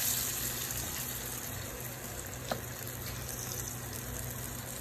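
Hot oil sizzling steadily around Egyptian fava-bean falafel balls deep-frying in a pan, busiest around a fresh ball of raw dough just dropped in. A single light click about two and a half seconds in.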